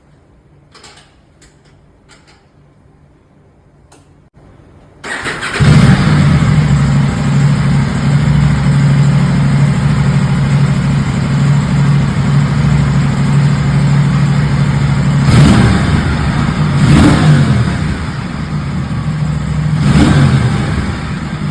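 Aprilia RS 457's parallel-twin engine on its stock exhaust, cold-started about five seconds in: it catches, settles into a steady idle, then gets three short throttle blips near the end, each rising and falling back to idle.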